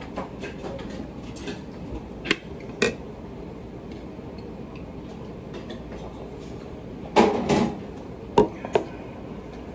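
Metal spoon clinking and scraping against a metal curry plate: a few sharp clinks, then a louder clatter of tableware about seven seconds in followed by two more clinks.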